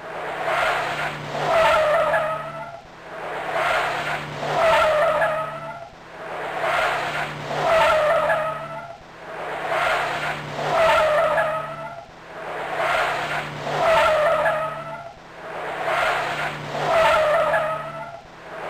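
A short car sound looped over and over: a swell of noise with a squealing tone rises to a peak and falls back about every three seconds, over a steady low hum.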